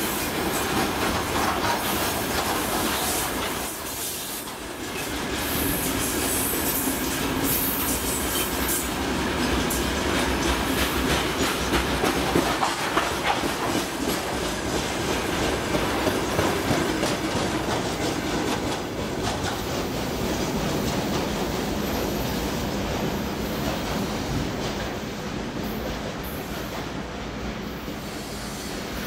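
Loaded freight train's hopper wagons rolling past, wheels clicking steadily over the rails. After the last wagon passes about halfway through, the rumble carries on and slowly fades over the last few seconds as the train moves away.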